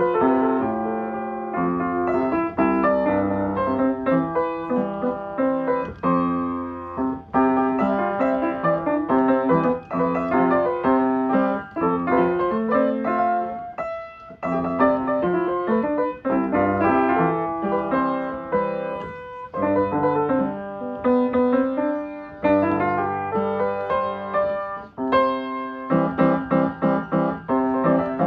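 Piano music: a solo piano playing a continuous run of notes and chords.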